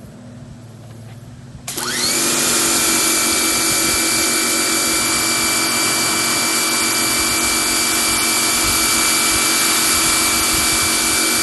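Electric pressure washer switching on about two seconds in, its motor whine rising quickly to a steady pitch over the loud hiss of the water jet from a 25-degree nozzle, then running steadily.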